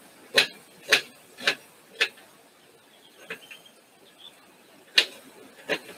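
Kitchen knife chopping an onion on a cutting board. Sharp knocks come about twice a second four times, then a pause with one faint knock, and two more near the end.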